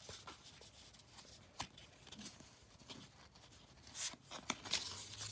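Trading cards being slid and shifted against one another in the hand: faint papery rustles and soft clicks, a few sharper ones about four seconds in.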